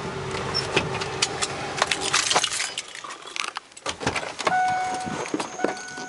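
A parked van's engine idling, then switched off a little under halfway through, with keys jangling and clicks from the ignition and controls. Near the end the driver's door opens and a steady electronic warning tone starts.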